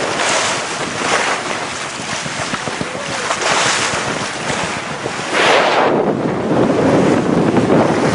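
Wind buffeting the microphone over water rushing along a sailing yacht's hull under way, in uneven surges that grow louder about two-thirds of the way through.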